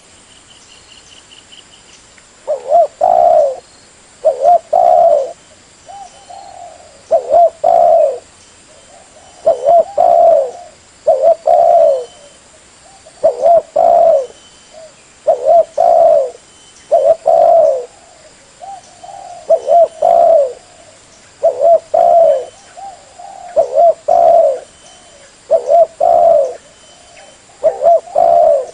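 Spotted dove (tekukur) cooing: short phrases of a few low coos repeated again and again, about one phrase every one to two seconds, the kind of call used as a lure to draw wild doves.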